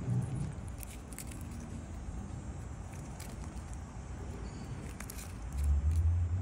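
Faint scattered clicks and rustles of a peanut shell being handled and nosed by a chipmunk on a person's palm. Under them is a steady low outdoor rumble, which swells near the end.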